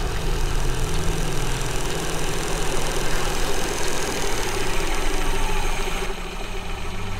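A loud, steady low mechanical rumble with a deep hum, like a machine running.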